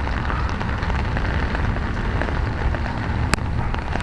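Heavy rain falling steadily, a constant hiss with a deep rumble underneath, and a single sharp click a little past three seconds in.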